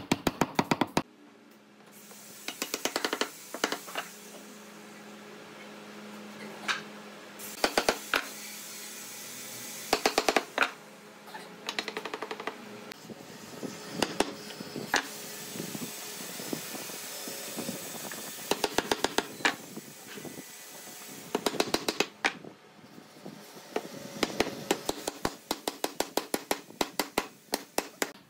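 Wooden mallet knocking a wooden chair-back rail down onto the slat tenons, in bursts of quick, sharp taps several a second with short pauses between, over a steady hiss.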